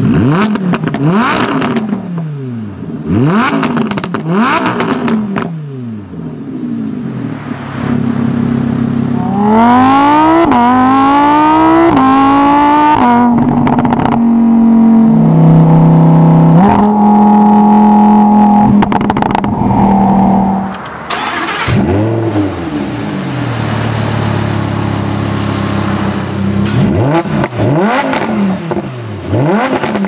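Lamborghini Huracán LP610-4's 5.2-litre V10 through the optional racing exhaust in Sport mode, bypass valve open. Quick throttle blips whose pitch shoots up and falls away, then from about ten seconds in a hard pull with rising pitch, followed by several loud seconds at steadier pitch with a few sudden steps as it shifts. More rising and falling revs near the end.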